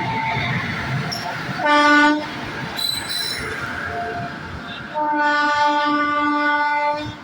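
Locomotive horn sounding twice: a short blast about two seconds in, then a longer one held for about two seconds near the end, over the rumble of the moving train.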